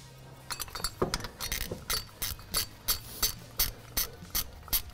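Ratchet wrench with a 13 mm socket clicking steadily, about three clicks a second, as a thermostat-housing bolt is run in on the water pump. The clicks start about half a second in.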